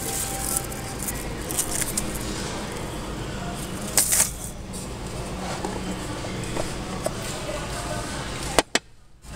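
Merchandise being handled and rummaged through on shop shelves: rustling and light knocks, with a sharp knock about four seconds in, over a steady shop background noise. The sound cuts out for a moment near the end.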